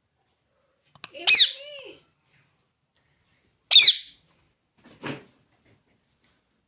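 Pet parrot giving two loud, sharp squawks about two and a half seconds apart, then a softer rasping call.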